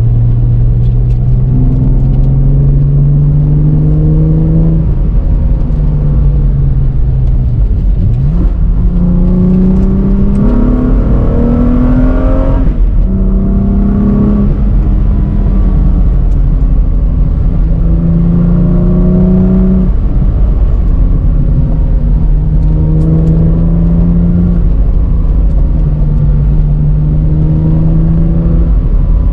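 Cosworth BOB V6 engine in a Ford Sierra XR4i accelerating repeatedly, its pitch rising over a few seconds and dropping back at each gear change.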